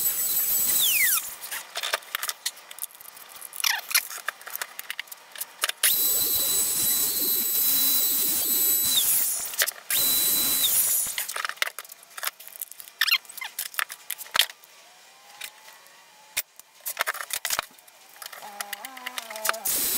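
Handheld trim router whining at high speed while it routes a recess into a wood slab. It is switched off about a second in and its pitch falls as it spins down, then it runs again for a few seconds, briefly once more, and winds down each time. Light clicks and knocks of the tool being handled come between the runs.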